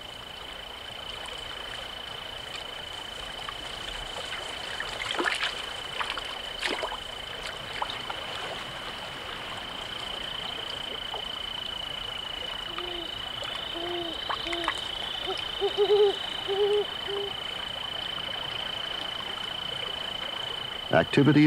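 Night-time pond ambience: a steady high-pitched whine throughout, two brief splashes in the first third, and a run of about eight short hooting calls around the middle.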